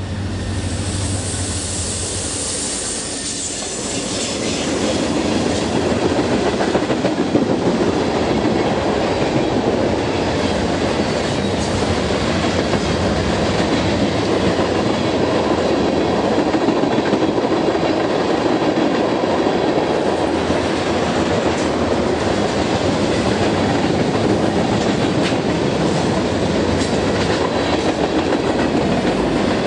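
A train passing close by: a low steady drone in the first few seconds gives way to a continuous rumble of rolling cars, with the wheels clicking over rail joints.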